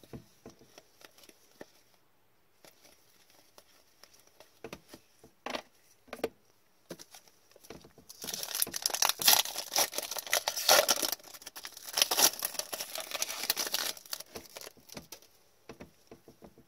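A trading card pack's wrapper being torn open and crinkled in gloved hands, a dense loud crackling from about eight to fourteen seconds in. Before and after it, light clicks and rustles of cards being handled.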